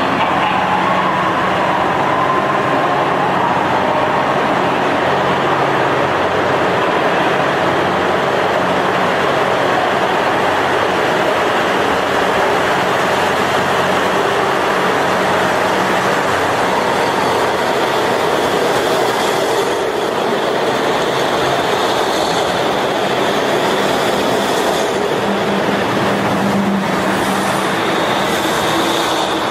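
KiHa 183-series diesel limited-express train moving along a station platform. Its diesel engines run and its wheels roll on the rails with a steady, continuous noise.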